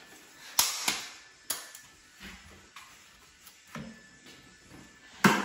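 Wooden shims being pushed and tapped into the gap between an interior door jamb and the wall framing: a handful of scattered sharp wooden knocks and clicks, the loudest about half a second in and just before the end.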